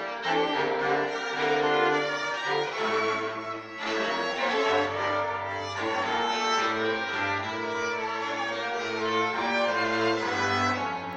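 Bowed string music: a violin playing sustained notes over a lower cello line that changes pitch every second or two.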